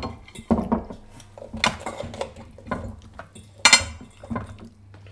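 Forks scraping and clinking against plates and bowls, a string of short clinks and scrapes with the loudest about three and a half seconds in.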